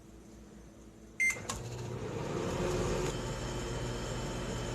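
Microwave oven started: a short beep about a second in, then the oven running with a steady hum as it cooks.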